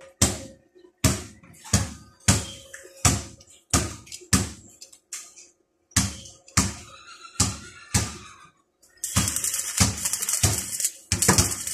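About a dozen sharp knocks, roughly one a second with a short pause midway. About nine seconds in, the steady crackle of stick (arc) welding starts as a fitting held in a bench vise is welded.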